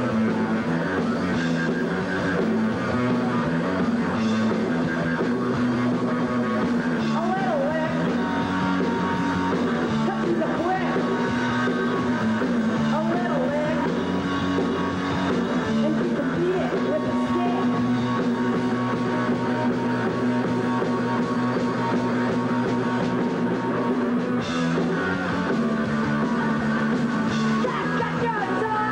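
Punk rock band playing live at a steady, loud level: distorted electric guitar, bass and drums, with a woman singing now and then.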